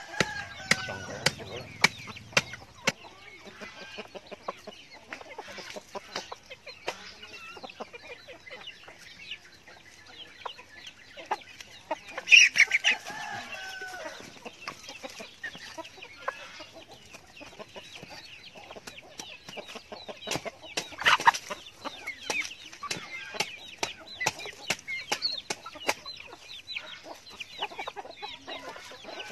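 Chickens clucking and calling as they forage, over many short taps and scratches. There is one loud squawk about twelve seconds in and another about twenty-one seconds in.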